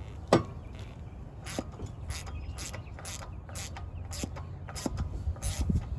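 Hand ratchet wrench clicking through a series of short strokes, about two to three clicks a second, as a screw is run in on a car's wheel hub, with one sharper clank just after the start.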